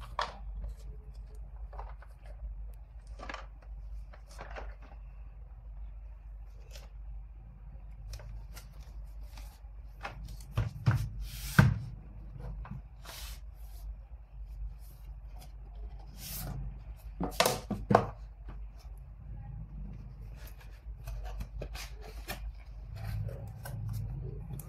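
Cardboard product box being handled and opened by gloved hands: scattered taps, scrapes and paperboard rustles, with a few sharper knocks about halfway through and again about two-thirds in, over a steady low hum.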